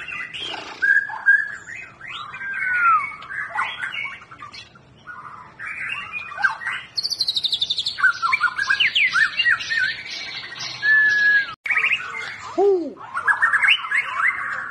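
White-rumped shama (murai batu) singing a long, varied song of clear whistles, slurred glides and fast chattering trills, with a momentary break about two-thirds of the way through.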